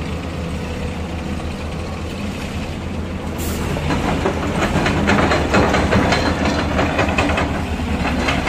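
Tata Hitachi tracked excavator's diesel engine running steadily. A rapid metallic clatter of rattles and clanks sets in about four seconds in.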